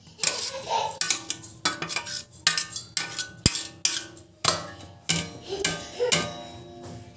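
A spoon knocking and scraping inside a mixer-grinder jar: irregular sharp clinks and knocks, some ringing briefly, as the ground henna powder is tapped out.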